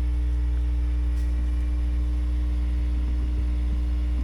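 An engine running steadily at a constant idle, with an even low hum and no change in speed.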